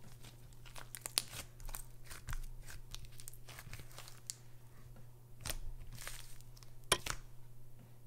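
Thick slime being stretched, pulled apart and squeezed by hand, giving an irregular run of small crackles and pops as it tears, with two louder pops in the second half.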